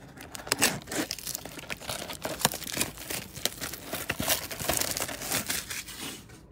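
Plastic wrapping being torn off a cardboard trading-card box and crumpled in the hands: a dense run of crinkling and crackling with short tearing sounds, easing off near the end.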